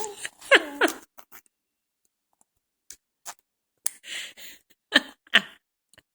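Baby's squeaky pitched vocalising in the first second, then after a pause short breathy, spluttering mouth noises and two sharp bursts a little before the end.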